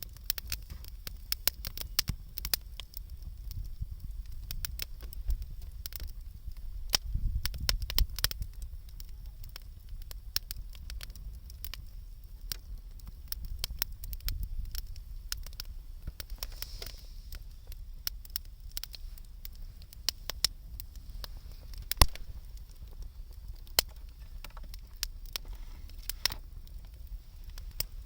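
Wood bonfire crackling, with sharp irregular pops throughout and one louder pop about 22 seconds in.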